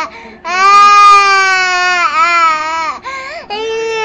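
A toddler crying in long, loud wails. A quick catch of breath comes at the start, then a held wail. About three seconds in there is a short rising-and-falling cry before the next wail begins.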